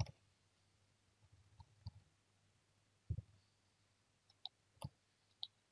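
Faint, scattered clicks and taps of a computer keyboard and mouse over near silence, several isolated strokes with gaps between them, the strongest a soft low tap about three seconds in.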